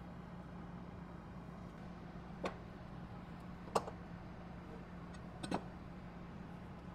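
Three light clicks of hand tools, a combination square and a marker, being handled and set down on a workbench, the middle one the loudest, over a steady low hum.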